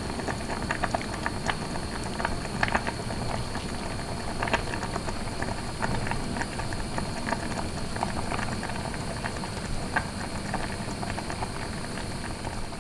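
Food boiling: a steady bubbling with frequent, irregular pops.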